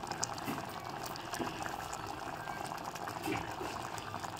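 Mutton curry simmering in an open pressure cooker pot, a steady bubbling sizzle with small scattered crackles; the water has cooked down and oil is rising to the top.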